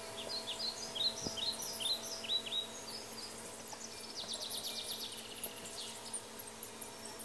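Sparrow chirping: a quick run of short, down-slurred chirps in the first few seconds, then a buzzy high trill about four seconds in. Under the chirps, a faint steady metallic ring from the stainless steel water bowl fades away about three seconds in.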